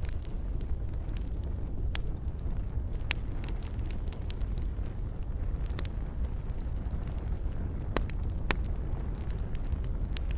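Wood fire crackling in a fireplace: a steady low rumble with scattered sharp pops, a few louder snaps among them.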